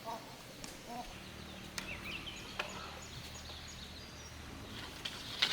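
Farmyard fowl calling in short chirping notes, with scattered light clicks and knocks.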